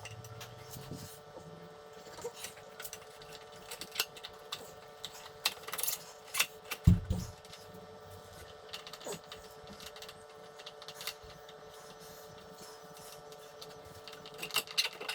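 Scattered metallic clicks and knocks of hands and tools working on a motorcycle wheel, with one heavier thump about seven seconds in, over a steady hum.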